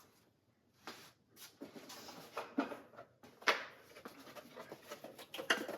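Plastic tool packaging being handled and pried open: a scatter of clicks, knocks and rustles, the sharpest knock about three and a half seconds in.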